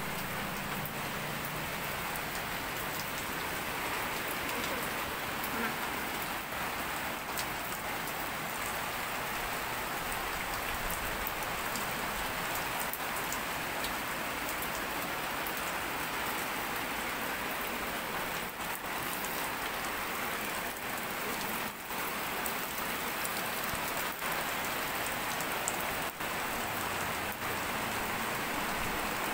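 A steady, even hiss with a few faint clicks scattered through it.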